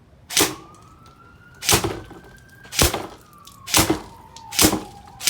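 Mk18 airsoft rifle fired in single shots, five sharp reports about a second apart. A faint siren wails slowly up and down behind the shots.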